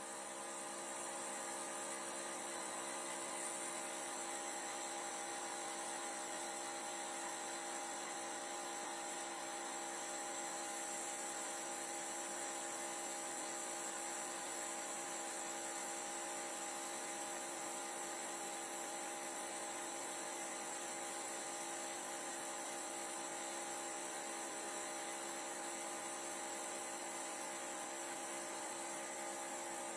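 Small electric motor running with a steady, unchanging hum and a hiss above it.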